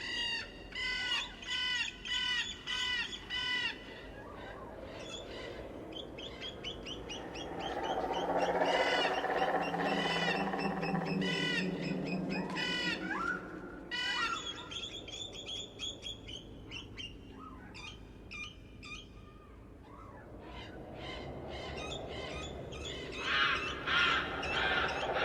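Birds calling. A quick series of repeated arched notes, about two a second, opens the sound, followed by varied calls and a denser cluster of calls near the end.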